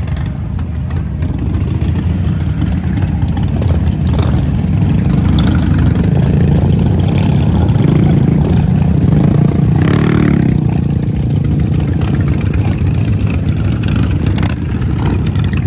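Several sports motorcycle engines running close by, steady and loud, with a swell in engine noise and a rev that rises and falls about eight to ten seconds in.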